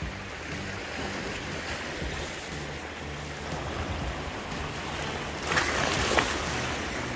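Small sea waves washing and splashing over flat rock ledges at the shoreline, a steady wash with a louder splash about five and a half seconds in.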